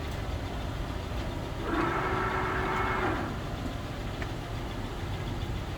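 TOS Trencin SN71C center lathe running in gear, its spindle drive and gearbox giving a steady mechanical rumble, with a louder whine for about a second and a half near the middle.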